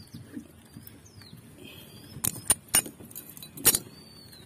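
Sharp plastic clicks and knocks from a white plastic drain fitting being handled and knocked at the bottom outlet of a plastic water tank: three quick clicks about two seconds in, then one louder one a second later.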